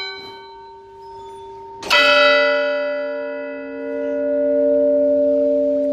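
Swinging church bells: the ringing of an earlier stroke fades, then one bell strikes loudly about two seconds in. Its deep hum rings on, swelling once and slowly dying away, with no further stroke.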